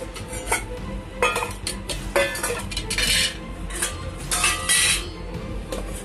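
Stainless steel tiffin carrier tins and steel plates clinking and scraping as they are unstacked and set down on a concrete floor. There are several sharp, ringing clanks about a second apart.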